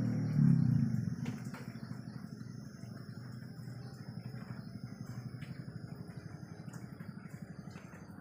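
A low pitched sound fades out about a second in. After it comes a quieter, rapidly pulsing low rumble like an idling engine.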